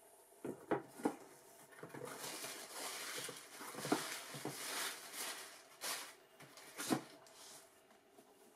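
Cardboard shoebox being handled: a few sharp knocks of the lid and box in the first second, then tissue paper crinkling and rustling for a few seconds, and two more knocks near the end.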